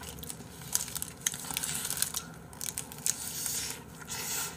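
Paper wrapper around a burger crinkling and rustling as it is handled, a run of irregular crackles.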